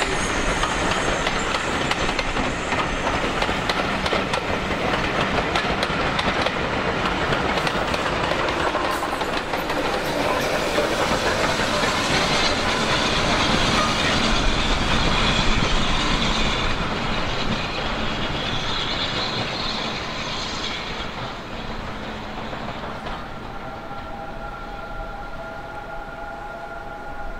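Passenger train hauled by USATC S160 2-8-0 steam locomotives running past and away: a steady rumble and clatter of the carriages on the rails. It is loudest about halfway through, as the rear locomotive passes, then fades as the train draws away.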